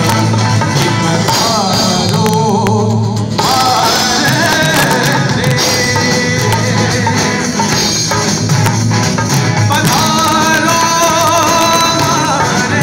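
Live rock band playing loud: guitars and drum kit with a male voice singing over them, heard through the hall's PA.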